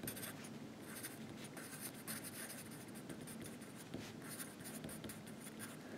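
Faint, intermittent scratching of handwriting, a pen or marker stroking across a writing surface.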